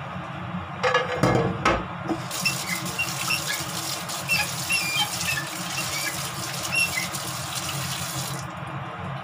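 A couple of knocks, then a kitchen tap running into the sink for about six seconds, starting about two seconds in and cutting off near the end.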